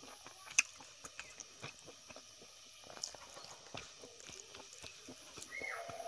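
Close-miked eating sounds: fingers squishing and mixing rice with a mashed food on a banana leaf, with many small clicks and mouth smacks. A brief falling squeak comes near the end.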